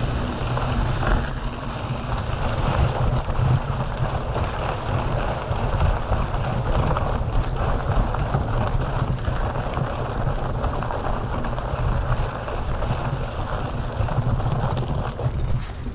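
Wind buffeting the microphone of an action camera on a moving mountain bike, over the rumble of tyres rolling on a loose dirt and gravel trail and many small knocks and rattles from the hardtail bike.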